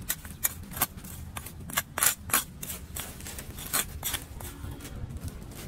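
A metal hand trowel scraping dry leaves and grit across a concrete gutter in a quick, uneven run of short, sharp scrapes. The loudest strokes come about two seconds in.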